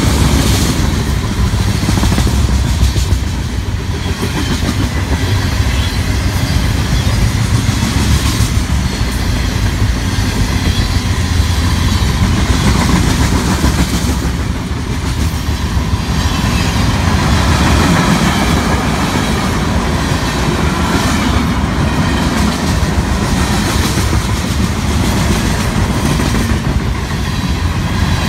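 Freight train cars, boxcars and then open-top cars, rolling past close by at speed. Steel wheels on rail make a steady, loud rumble and clatter.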